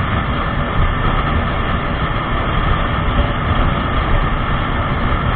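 Motorcycle riding at highway speed, around 100 km/h: a steady, loud rush of wind over the microphone mixed with engine and tyre noise.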